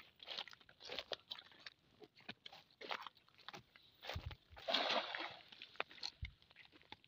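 Irregular crunching and rustling of rubber boots on a wet, weedy bank and of a cast net being handled, then, about five seconds in, the cast net landing on the water with a short splash.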